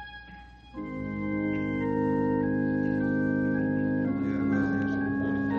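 Organ music: a held chord fades out, and about a second in organ chords enter, stepping through slow sustained chord changes, opening a scene set at a church.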